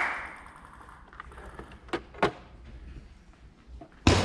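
A spectator's clapping ending, then a quiet stretch with two isolated sharp taps about two seconds in, and a loud sudden knock near the end.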